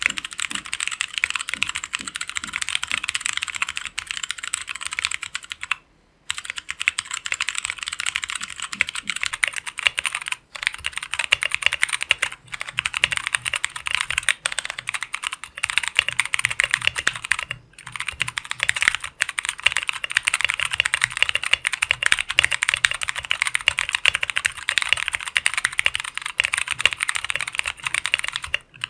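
Mechanical keyboard with stock tactile switches (Greetech Brown) being typed on fast and continuously: a dense clatter of keystrokes, broken by short pauses about 6, 10 and 18 seconds in.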